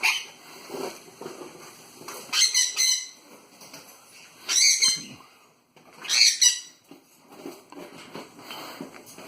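Pet parrots calling: a short squawk at the start, then three loud, shrill calls about two seconds apart, with faint chatter between them.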